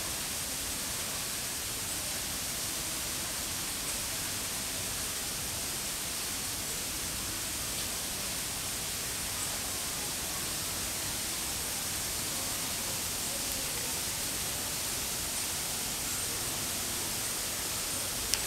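Steady, even background hiss with no distinct sound events, and a single short click near the end.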